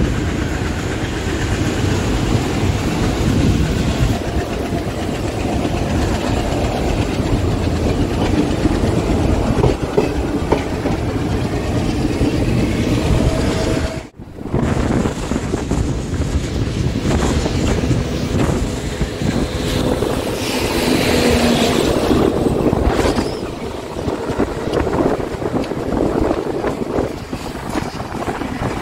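Passenger train running along the line, heard from on board: a steady rumble with wheels clattering over the track. The sound drops out for a moment about halfway through.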